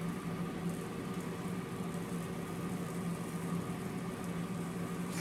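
Steady electric motor hum of a kitchen appliance running, one low even tone with fainter overtones above it and no change.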